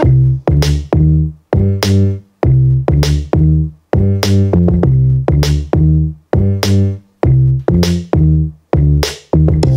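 Electronic music with a drum-machine beat played through an Edifier D12 Bluetooth bookshelf speaker: short, heavy bass and synth hits about twice a second, each cut off sharply with brief silent gaps between.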